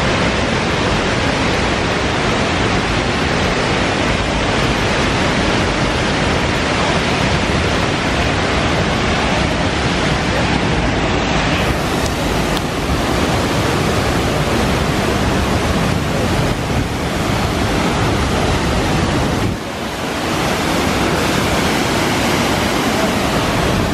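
Steady rushing of a waterfall heard close up, a dense even noise that dips briefly about three-quarters of the way through.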